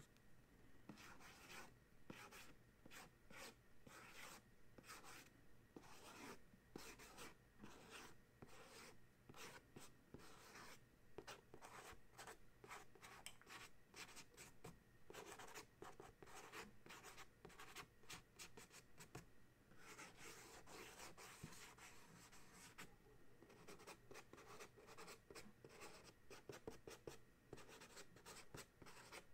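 Fingernails scratching and tapping on a small thin cardboard carton: a faint, quick run of short scratchy strokes, with a longer unbroken scratch partway through.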